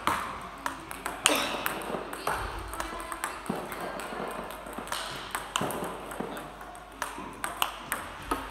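Table tennis balls struck in a fast multiball backhand drill: a quick, uneven run of sharp clicks as the ball comes off the bats and bounces on the table, with a short echo of the hall after the louder hits.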